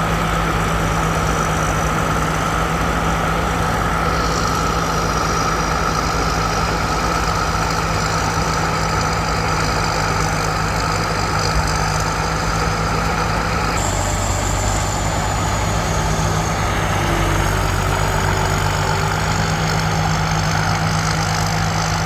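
Combine harvester's diesel engine and threshing machinery running steadily under load. About two-thirds of the way through, the machine's note shifts and a thin high whine comes in.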